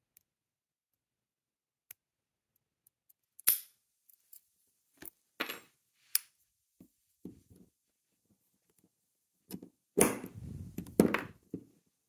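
Brass Master Lock No. 150 padlock and its picking tools being handled: a sharp metallic click about three and a half seconds in as the picked lock comes open, a few lighter clicks of the shackle and tools, then a louder cluster of clicks and knocks near the end as the shackle is pushed shut and the lock is set down.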